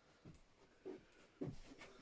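Near silence: room tone with a few faint, soft knocks, about a second and a half into the sound.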